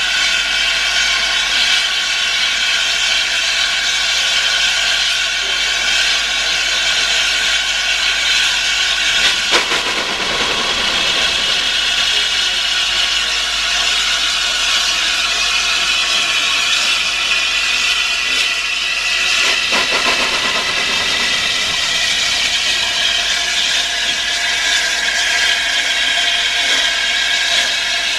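Gresley A4 Pacific steam locomotive hissing steam steadily, with steam escaping around the cylinders and wheels. There are two brief, sharper sounds, about ten and twenty seconds in.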